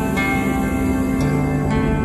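Slow ambient new-age music of sustained, layered tones, the chord shifting softly a couple of times.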